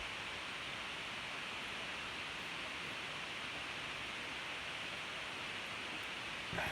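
A steady, even hiss, with a faint short knock near the end.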